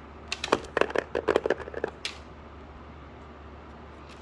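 Paper and plastic packaging being handled: a quick run of small crackles and taps for about two seconds, then only a faint steady hum.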